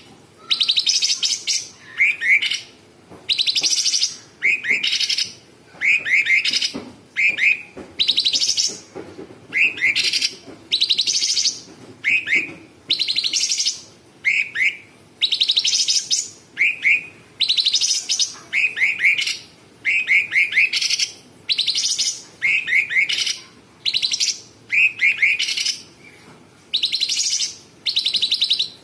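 Caged blue-winged leafbird (cucak cungkok) singing. It alternates short sets of quick down-slurred whistles with harsh, buzzy bursts about a second long, over and over at a steady pace, roughly every second and a half.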